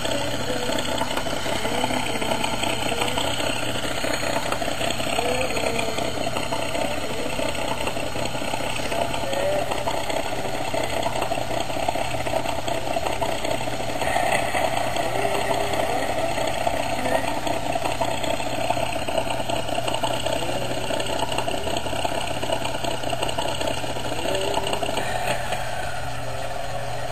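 A steady engine drone, as of an engine idling, with a constant low hum and faint voices over it.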